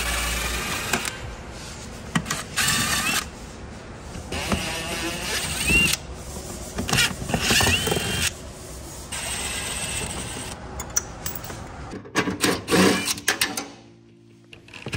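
Cordless power tool running in short bursts, its motor whine rising as it spins up, mixed with clanks and knocks of metal car parts being taken off; the sound changes abruptly every second or two.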